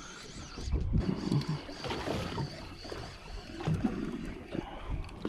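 Boat ambience at sea: uneven low rumbling of wind and water with scattered small knocks and handling sounds, and a faint steady high tone.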